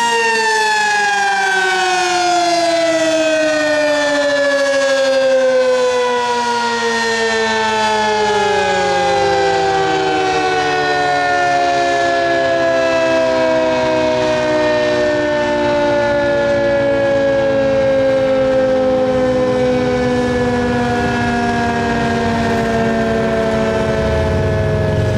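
Sentry 15V2T dual-tone outdoor warning siren winding down after its full alert (steady) signal: its chord slides slowly and evenly downward in pitch as the rotor coasts, still sounding as it falls. A low rumble comes in near the end.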